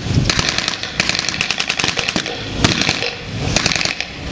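Blank gunfire in a WWII battle re-enactment: several short bursts of rapid shots, like machine-gun fire, with brief gaps between.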